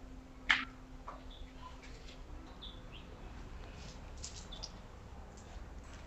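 Light clicks and ticks of a bicycle gear cable and its outer housing being handled and threaded, with one sharper click about half a second in and a few more ticks near the middle. Faint short bird chirps in the background.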